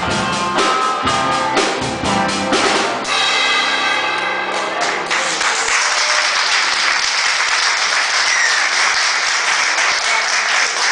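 Live rock band with drum kit playing the last bars of a song, ending on a ringing held chord about three seconds in. From about five seconds in, audience applause follows.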